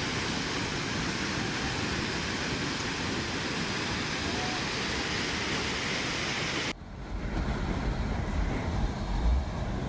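Steady rush of a flooded river's water. About two-thirds of the way through it cuts off abruptly, giving way to a low, gusty rumble like wind buffeting a microphone.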